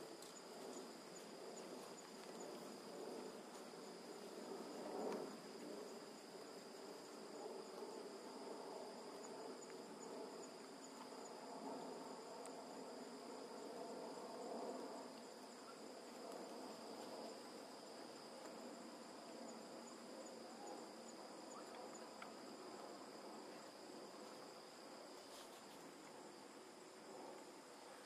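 Faint, steady insect chorus: a continuous high trill with a finely pulsing higher note above it, over a low background murmur, and a brief louder sound about five seconds in.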